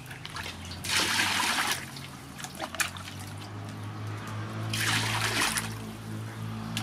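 Water splashing and sloshing in a large aluminium basin while fish pieces are washed, in two bursts of about a second each: about a second in and again about five seconds in.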